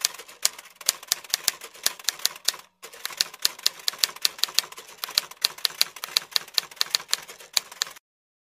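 Typewriter sound effect: rapid key clacks, about five a second, with a short break about three seconds in, stopping shortly before the end.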